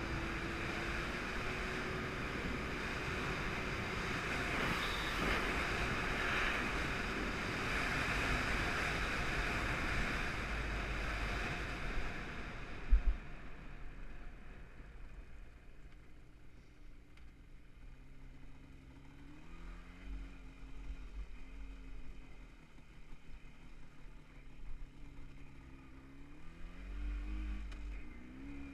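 Jawa 638 two-stroke twin motorcycle engine running under way. For the first half, heavy wind rush on the microphone covers most of the engine. A single sharp knock comes just under halfway through, then a quieter stretch follows in which the engine note rises and falls with the throttle.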